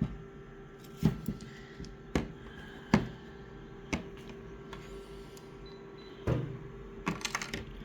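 Handling noises: a series of light knocks and taps as a piece of material is set back in place, spaced about a second apart and then a quick cluster near the end, over a steady low hum.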